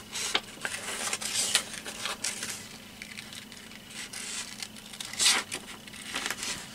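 A sheet of printed paper rustling and crinkling as it is handled and moved over a book page, in short irregular bursts, the loudest about five seconds in.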